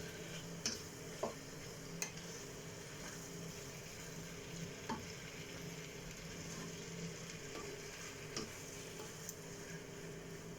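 Food sizzling in a cooking pan, with a few sharp clinks of a utensil against the pan as it is stirred.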